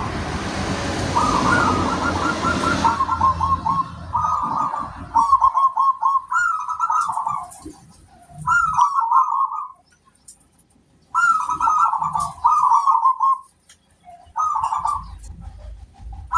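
Zebra dove (perkutut) cooing over and over in rolling, bubbling phrases, with short pauses between bursts. A steady rushing noise covers the first three seconds, and faint high chirps of small birds sound in the background.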